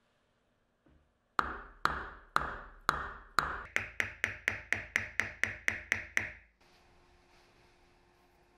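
A mallet tapping a machined aluminium step pulley down into place on a drill press, about sixteen sharp strikes that ring briefly. The first five come about half a second apart, then they quicken to about four a second and the ring goes a little higher.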